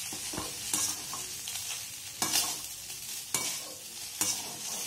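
Perforated steel spatula stirring and tossing rice with vegetables in a stainless-steel kadai over a light sizzle. The spatula scrapes and knocks against the pan about five times, irregularly.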